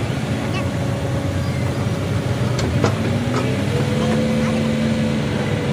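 Diesel engines of a long-reach excavator and dump trucks running, with a steady hum. A held whining tone comes in about four seconds in as the excavator's boom swings, and there are a few sharp knocks near the middle.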